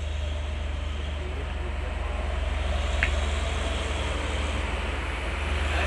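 Steady low mechanical drone of running machinery, an engine-like hum with a fine even pulse, and a brief high squeak about three seconds in.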